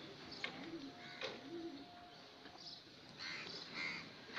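Pigeons cooing faintly in the background, a few short low coos, with a couple of sharp clicks about half a second and just over a second in.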